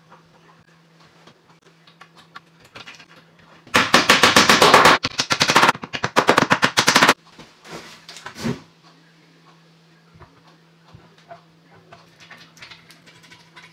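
A wooden mallet tapping wooden Domino tenons into their glued mortises in a cabinet panel: two quick runs of rapid knocks, the second broken into short groups. Faint handling knocks come before and after.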